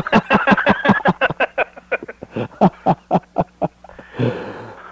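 Hearty laughter in quick pulses, about six a second, dying away into a breath near the end.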